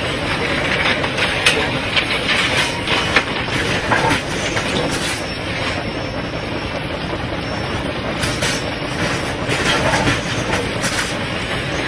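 Track-renewal machine working slowly along the line: a steady mechanical rumble and hiss with irregular sharp metallic clanks and knocks.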